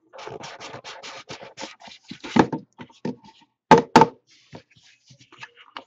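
Hands sliding a trading-card box out of its cardboard sleeve with quick scraping and rustling. Then come a few sharp knocks as the box and its lid are handled and set down on the table: one about halfway through and two close together a moment later.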